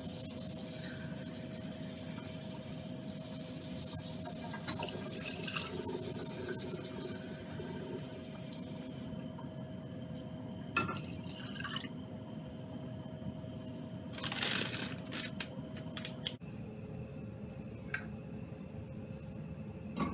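Gas range burner being lit: a few igniter clicks and a brief rush of noise as the flame catches, over a steady hum.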